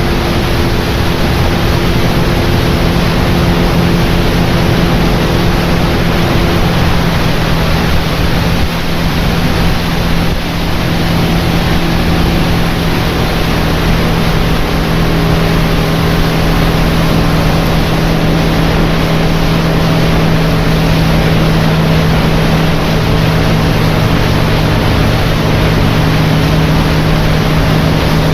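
Tour boat's outboard motor running steadily under way, with a steady rush of noise over it. The engine's tone shifts slightly about six to seven seconds in.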